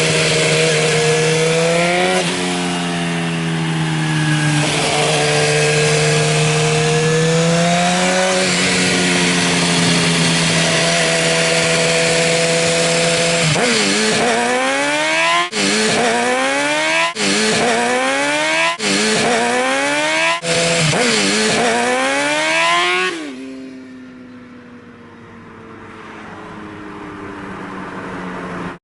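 Suzuki GSX-R inline-four motorcycle engine through a Leo Vince aftermarket exhaust, held at raised revs that swell and fall. From about halfway there is a run of quick throttle blips, each revving up fast and cutting off sharply. Near the end it drops back to a quieter idle.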